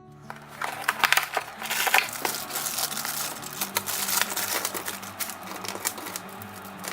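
Crackling and crinkling of advent calendar packaging being opened by hand, a dense run of clicks loudest in the first two seconds, over quiet background music.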